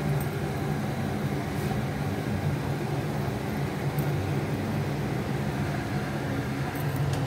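Dry red chillies and spices sizzling in hot oil in an iron kadhai for a tadka, under a steady low hum with an even hiss and a few faint pops.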